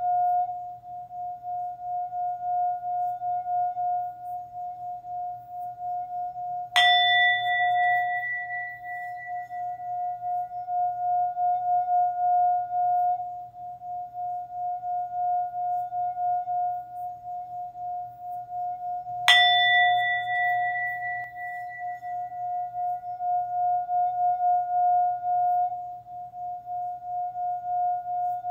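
Singing bowl sounding one steady, wavering hum, as when a bowl is rubbed around its rim. It is struck twice, about twelve seconds apart, and each strike adds a brighter, higher ringing that fades over a few seconds.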